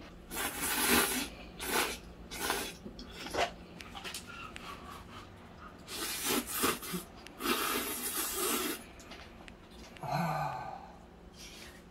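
A person slurping instant ramen noodles in a series of short sucking bursts, then a short hummed "mm" with a falling pitch about ten seconds in.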